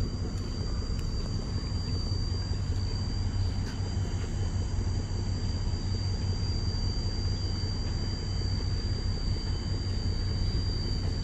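Steady low outdoor rumble, with a continuous thin high-pitched whine above it.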